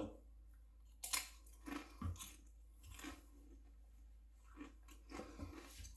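A crunchy pretzel bitten with one sharp crack about a second in, then chewed with quieter crunches.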